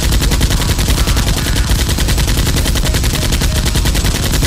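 Rapid automatic gunfire: one long continuous burst of evenly spaced shots that cuts off suddenly at the end.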